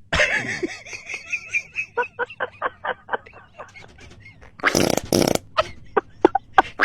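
Fart sounds: a long drawn-out fart first, then a rapid string of short sputtering pops, then two loud bursts and a few more short pops near the end.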